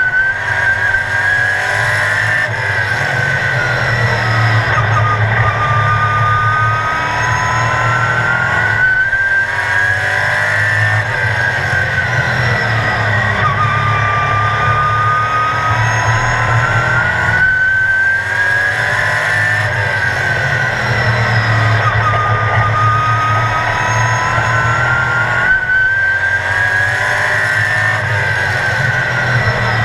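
Sportsman stock car's engine, heard from inside the car at racing speed. Its pitch climbs under throttle and sinks as the driver lifts, with a brief dip about every eight seconds as the car goes into the turns.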